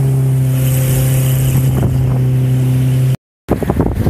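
Mercury outboard jet motor running steadily under way at a constant pitch. It cuts off abruptly near the end at an edit, and after a short gap a rough rush of water and wind takes over.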